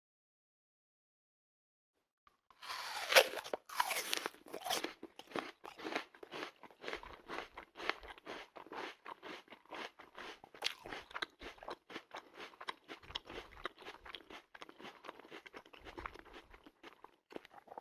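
A crisp apple being bitten into about three seconds in, the loudest crunch, followed by rapid, steady crunchy chewing that gradually grows fainter.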